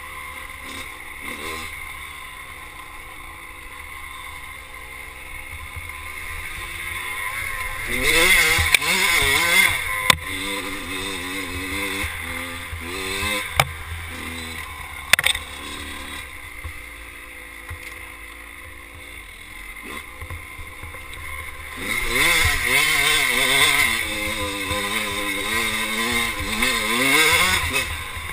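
Kawasaki KX motocross bike's single-cylinder engine being ridden through the gears, its pitch rising and falling constantly as the throttle is worked. It is opened up hard about eight seconds in and again for several seconds from about twenty-two seconds. A few sharp knocks come in between.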